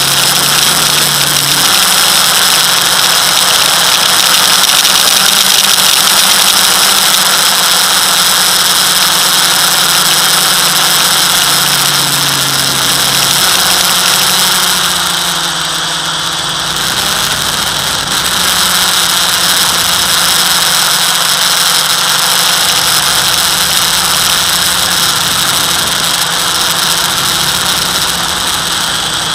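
FPV quadcopter's electric motors and propellers whining steadily at a high pitch, made of several tones at once, easing briefly a little past halfway.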